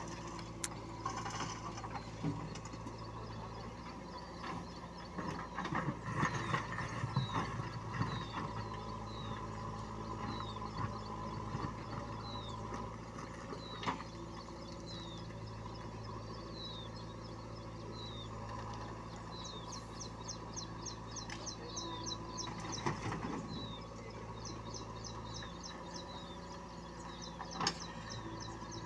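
Diesel engine of a JCB 3DX backhoe loader running steadily as the backhoe digs soil, with rough scraping stretches and a few sharp knocks. A bird chirps repeatedly over it, about once a second, and later in quick trills.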